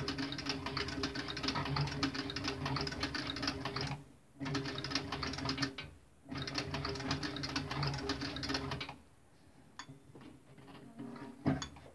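Cowboy CB3200 triple-feed cylinder-arm sewing machine stitching a leather dog collar, in three runs: about four seconds, a short burst of under two seconds, then about two and a half seconds, each stopping suddenly. Near the end come a few light clicks and one sharp knock.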